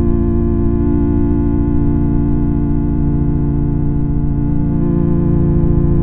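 A loud, sustained organ-like electronic drone with many stacked overtones, wavering slightly and held unbroken throughout.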